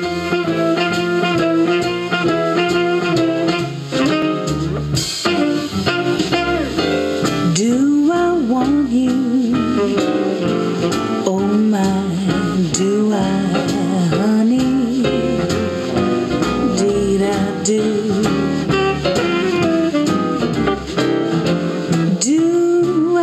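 Instrumental passage of a blues-tinged jazz recording, guitar to the fore over drums, played back through a JBL Paragon loudspeaker. In the middle come bending, sliding notes.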